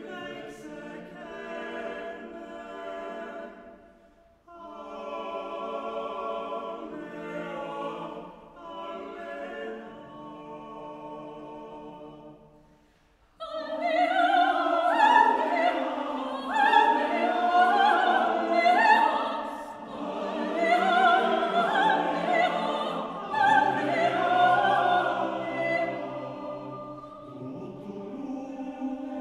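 Male choir singing soft, sustained chords in short phrases with brief pauses. About halfway through, a soprano soloist comes in louder above it with high, swooping calls modelled on Estonian herd-boys' herding calls, while the choir holds chords beneath. Near the end she stops and the choir's chords carry on.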